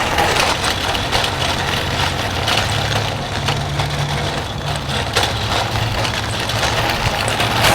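A vehicle engine running steadily, its pitch rising for a moment about three and a half seconds in.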